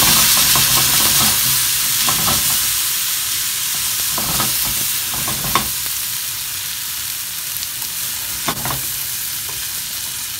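Potato gnocchi and peas sizzling steadily in a hot frying pan with melting butter. A wooden spatula scrapes and stirs them in short bursts every couple of seconds.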